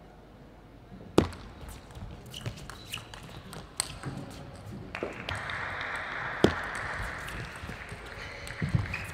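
Sharp clicks of a celluloid table tennis ball being struck by rackets and bouncing on the table during a rally, coming irregularly about a second apart. A steady crowd noise rises partway through and runs for a few seconds.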